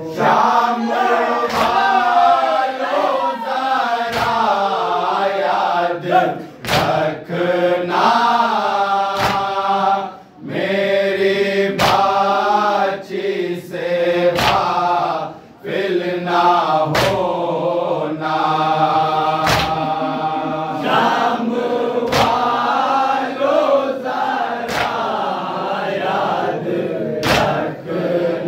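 Group of men chanting a noha (Urdu lament) in unison, one voice leading into a microphone. Sharp hand strikes on the chest (matam) keep time roughly every second and a half.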